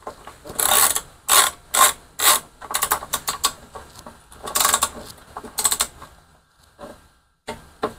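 Socket ratchet wrench clicking in short bursts, with pauses between them, as a 3/8-inch bolt is run down.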